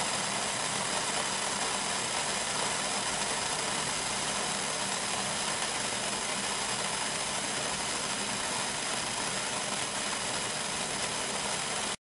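KitchenAid 2.0-quart enamelled steel stovetop kettle heating water near the boil: a steady sizzling hiss. Steam is just beginning to escape, but the whistle has not yet started.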